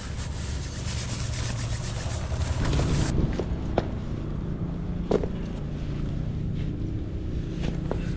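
Wind rumbling on the microphone with rustling of tent fabric, changing suddenly about three seconds in to a duller steady rumble. Over it come a few light knocks and scrapes as boots are handled and pulled on.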